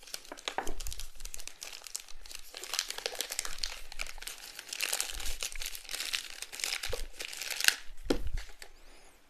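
Packaging crinkling and tearing as hands unwrap and handle a small cardboard earbud box, an irregular crackle of fine clicks, with a few light knocks against the desk near the end.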